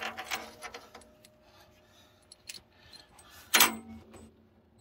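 Loose steel bolts and nuts clinking against the floor of a steel tractor loader bucket as they are handled, with one louder, ringing metal clank about three and a half seconds in.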